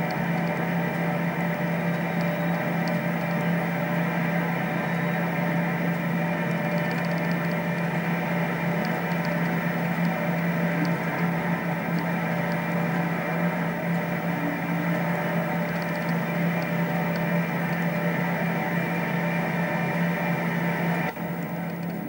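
A steady, unchanging mechanical drone with a strong low hum, cutting off abruptly about a second before the end.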